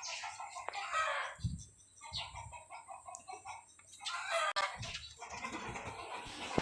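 Chickens clucking in short, repeated calls, with a few soft low thumps.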